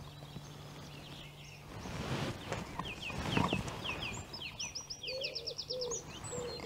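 Riverside birdsong: a small songbird sings a fast run of short, high chirps from about three seconds in, with a lower, wavering call from another bird joining past the middle. Just before the singing starts there is a brief noisy rush.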